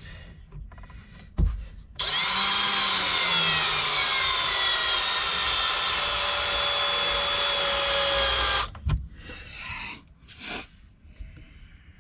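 Power drill running steadily for about six and a half seconds, its motor pitch sagging slowly as it drives in a fastener, then stopping abruptly. There are a few short clicks and knocks before and after it.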